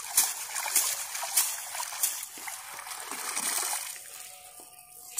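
A cast net full of small live fish being dunked and swished in shallow river water, with repeated splashing and sloshing. The splashing dies away after about four seconds as the net is lifted out.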